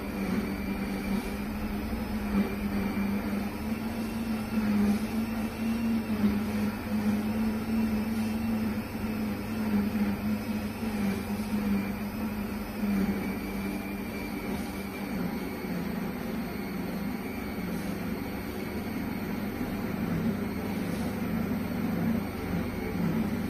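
Quiet cooking blender running through a program: a steady low motor hum that wavers slightly in pitch and loudness.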